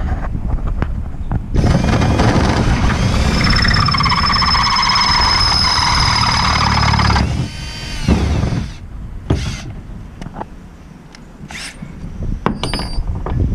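Electric drill boring the tap-size hole in the boat: the motor whines steadily for about five seconds, then spins down when the trigger is released. A few short clicks and knocks follow.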